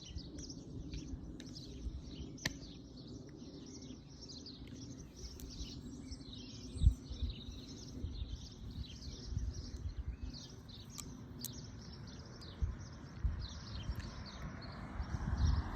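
Many songbirds chirping and singing together in a dense, steady chorus, with a few low thumps, the loudest about 7 seconds in. Near the end a steady rushing noise of a passing vehicle grows louder.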